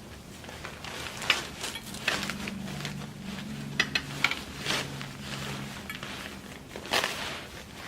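Metal frame tube of a bassinet being pushed through the fabric top channel: irregular light knocks and taps of metal on plastic and fabric, with rustling in between. There is a sharper knock about a second in and another near the end.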